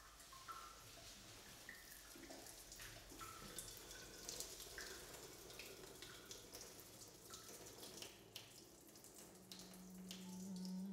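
Faint water trickling from a tap and dripping and splashing onto a stainless-steel surface and into its drain, with scattered small drips. A low hummed tone begins near the end.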